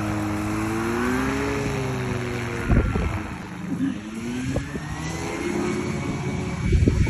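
Paramotor trike's engine and propeller running, the pitch wavering, then rising steadily from about halfway as the throttle opens for the takeoff roll. Gusts of wind rumble on the microphone about three seconds in and again near the end.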